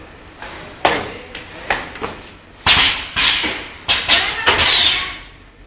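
Semi-automatic starch moulding line working its wooden starch trays: about four sharp knocks in the first two seconds, then several louder, longer hissing, scraping bursts in the second half.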